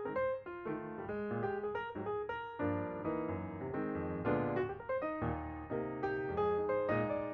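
Background piano music: a gentle melody of notes that sound and fade, with low chords underneath.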